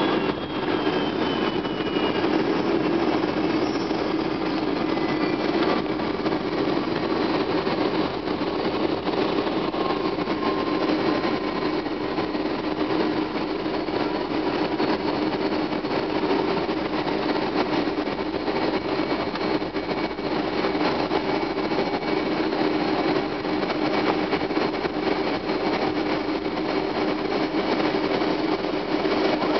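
Cabin noise of a Boeing 757-200 rolling out along the runway after touchdown: a steady rumble of the jet engines and the rolling airliner. In the first few seconds a faint high whine falls in pitch as the engines spool down.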